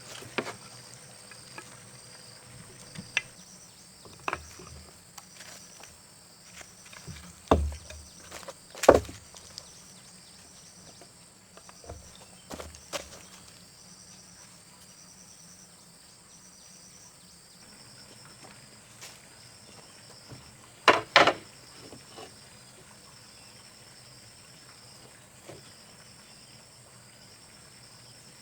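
Insects trilling in a steady pulsing rhythm, with scattered sharp knocks: two loud ones about a third of the way in and a quick cluster of knocks about three quarters of the way through.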